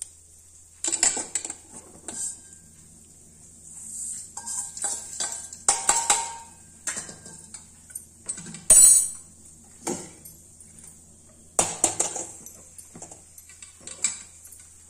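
Stainless steel kadai being handled on a glass-top gas stove: scattered metal clanks, knocks and scraping as the pan is emptied, lifted off and set back down, with the loudest clank about nine seconds in.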